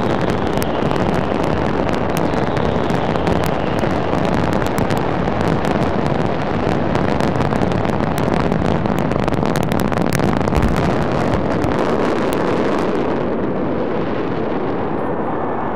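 Massed fireworks going off together: a loud, dense crackle of many small bangs over a continuous wash of noise. The crackling stops about 13 seconds in, leaving a quieter rushing wash.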